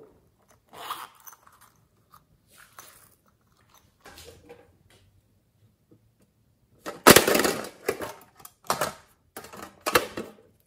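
Hands handling small plastic makeup cases close to the microphone: scattered soft knocks and rubbing, with a louder stretch of handling noise about seven seconds in and a few shorter bursts after it.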